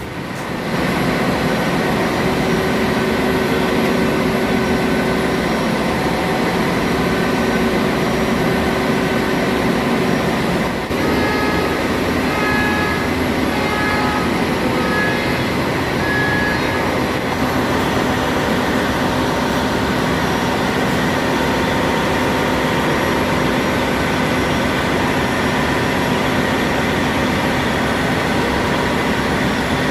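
Steady loud machinery noise of a ship's engine room, with a short run of brief beeping tones about eleven to seventeen seconds in.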